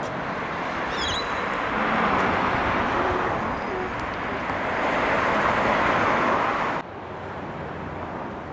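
Steady rushing vehicle noise, with a brief high chirp about a second in; the noise drops off suddenly about seven seconds in.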